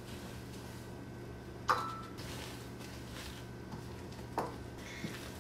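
Wooden spoon stirring almond flour into batter in a stainless steel mixing bowl: faint scraping, with a sharp knock against the bowl nearly two seconds in that rings briefly, a second knock a little past four seconds, and a few lighter taps.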